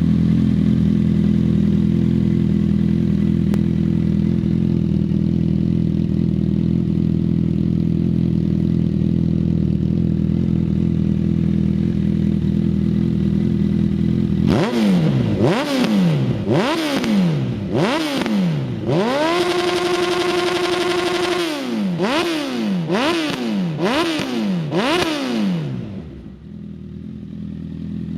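Honda CB1000R inline-four engine through an aftermarket sport slip-on exhaust, idling steadily, then blipped up and down about ten times from about halfway, with one rev held for a couple of seconds, before it settles back to idle near the end.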